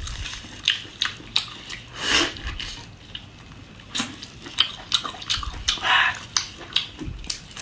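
Close-miked mouth sounds of a person eating spicy beef tripe in chili oil: wet chewing, lip smacks and clicks in an uneven run, with a couple of longer hissing sounds about two and six seconds in.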